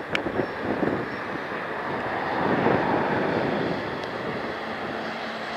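Garbage truck driving past: engine and tyre noise that swells and fades twice.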